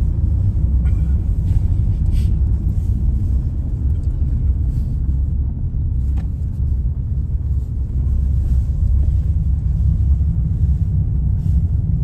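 Steady low rumble of road and engine noise inside a moving car's cabin, with a few faint ticks.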